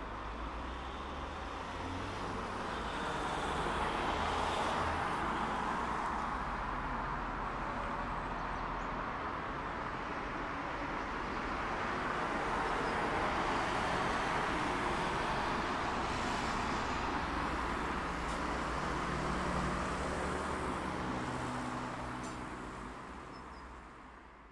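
Steady rushing background noise with a low hum underneath, fading out over the last couple of seconds.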